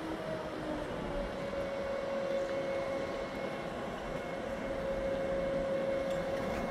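Large mobile crane running steadily with a droning whine while it holds and slowly swings a long steel gantry; the pitch of the whine dips slightly about a second in.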